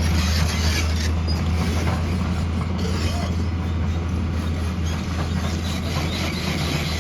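Diesel engine of heavy earthmoving machinery running steadily: a constant low hum under a wash of mechanical noise.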